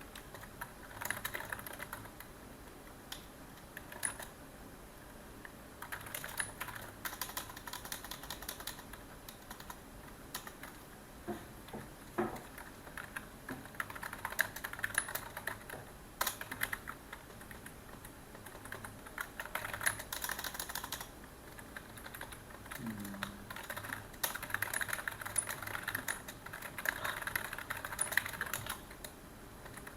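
Typing on a computer keyboard: quick runs of key clicks in bursts, separated by short pauses.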